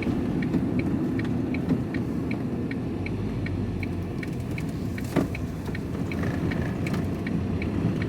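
A vehicle's turn-signal indicator ticking evenly, about two to three clicks a second, over the steady rumble of engine and road noise in the van's cab. A single sharp knock comes about five seconds in.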